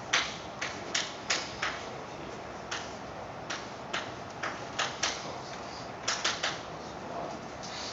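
Chalk writing on a chalkboard: irregular taps and short scratches as each chalk stroke is made, about fifteen over several seconds.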